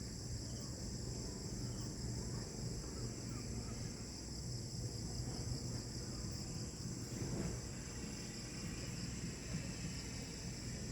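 Steady, unbroken chorus of insects, high-pitched, over a low background rumble.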